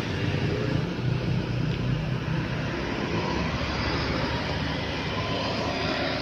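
Road traffic passing: a car and then a motor scooter driving by. Their engines and tyres make a steady low rumble that eases slightly in the second half.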